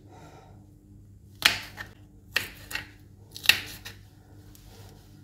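Kitchen knife chopping green bell pepper on a wooden cutting board: three sharp knocks of the blade on the board about a second apart, each followed by a lighter one.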